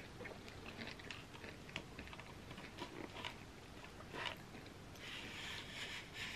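Faint, close-miked chewing of soft cookie with small clicks and taps as a spoon digs into a gooey Nutella cookie pizza on its pan. There is a sharper tap about four seconds in and a scrape of about a second near the end.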